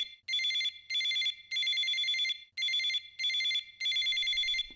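Phone ringing with an electronic ringtone: a warbling trill repeated in short bursts about half a second long, with brief gaps between them.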